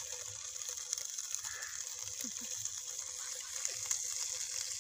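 Ghee sizzling and bubbling in a hot pan: a steady high hiss with occasional small crackles.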